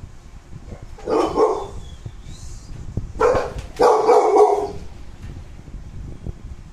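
American bully dog barking from inside a wire crate: three drawn-out barks, about a second, three seconds and four seconds in.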